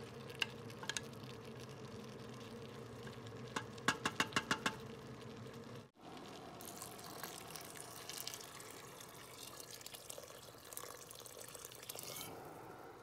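Hot water poured in a steady splashing stream onto soaked basmati rice in a steel pressure-cooker pot, lasting about six seconds in the second half. Before the pour, the rice is spread in the pot with a spoon, with a quick run of about six light taps.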